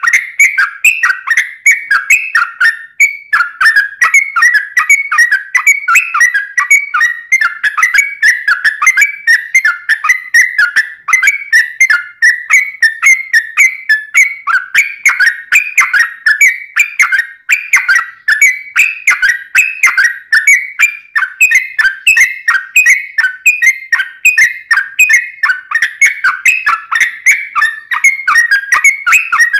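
Yellow-vented bulbul (trucuk) singing a long, fast run of chirping, warbling notes without a break, several notes a second.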